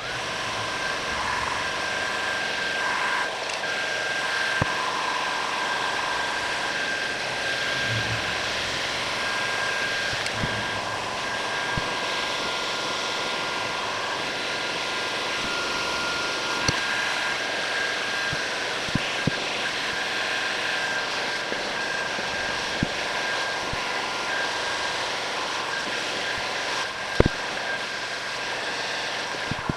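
Heat gun blowing steadily with a faint motor whine, drying a freshly washed walnut rifle stock. A few light knocks of the stock being handled, the loudest about 27 seconds in.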